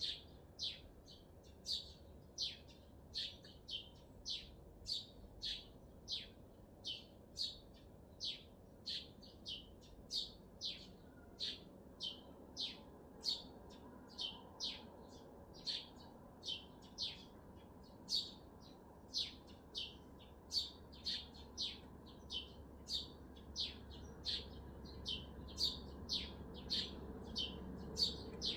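A small bird calling over and over, short piercing chirps about twice a second, over the steady low hum of city noise that grows louder near the end.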